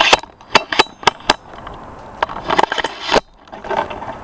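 A tripod-mounted camera being picked up and moved: a string of sharp clicks and knocks from the tripod and camera handling, several in the first second and a half and more from about two to three seconds in.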